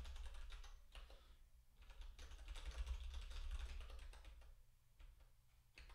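Faint computer keyboard typing: a run of light, irregular key clicks over a low steady hum.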